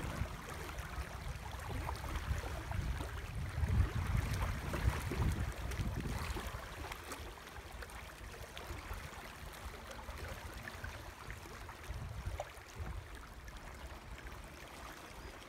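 Small waves lapping against a stony reservoir shoreline. An irregular low rumble of wind on the microphone is strongest in the first half and eases after that.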